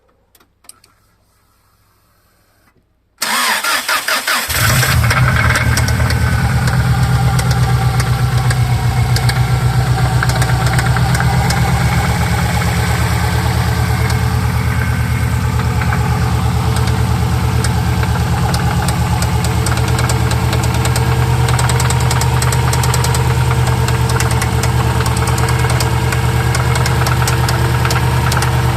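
Subaru boxer engine cranking and catching about three seconds in, then idling steadily with a fast, even knock that the owner cannot place as rod knock or piston slap.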